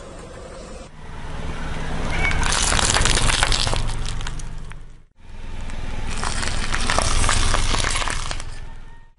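Car tyre rolling slowly over small objects on pavement, crackling and crunching as it crushes them, over a low engine hum. It comes as two separate passes, each swelling and then fading, with a sudden cut about five seconds in; the second pass crushes a row of chili peppers.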